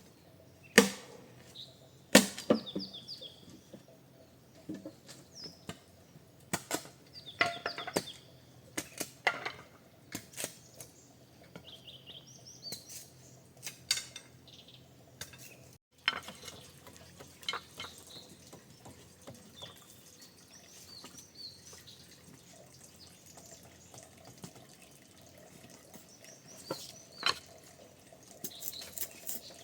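Irregular splashing and dripping of water, with sharp knocks and clicks scattered throughout.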